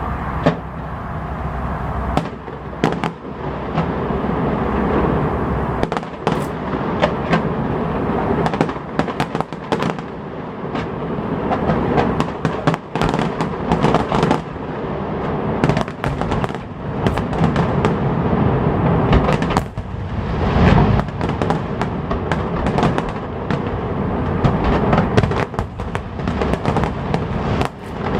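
Fireworks display: a run of sharp bangs and crackling bursts, few at first and then coming thick and fast from about eight seconds in.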